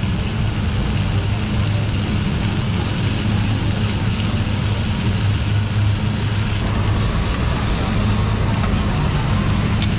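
Pork belly sizzling in iron pans over an open gas burner, under a steady low roar from the burner.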